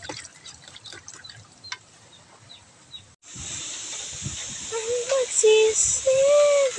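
Dark liquid marinade sloshing and trickling in a plastic tub, with small clicks. After an abrupt cut about three seconds in, a steady high sizzling hiss from a whole chicken roasting over a wood fire as it is basted, with several short pitched calls, the loudest near the end.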